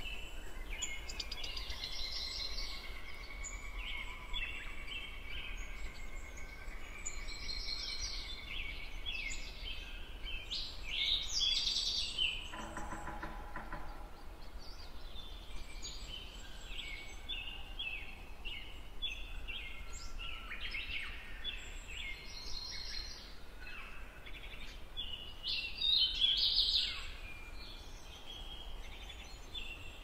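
Many small songbirds chirping and twittering together, short high calls overlapping continuously, with one lower, longer call about thirteen seconds in, over a steady low background rumble.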